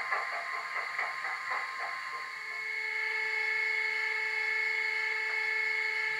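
Bachmann Class 25 model locomotive's DCC sound decoder playing its diesel engine sound through the model's small speaker. A pulsing engine note settles about two and a half seconds in into a steady high whine.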